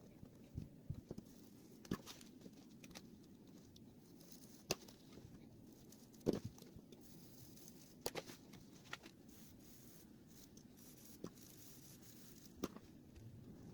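Sparse light clicks and taps at irregular intervals over faint background noise, about ten in all, the loudest about six seconds in.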